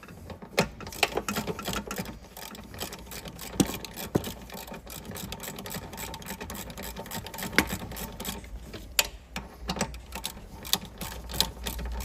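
Ratchet wrench with a T50 Torx bit clicking in quick, uneven runs as it works loose the tight lower seat belt anchor bolt, with a few louder knocks of the tool against the bolt and trim.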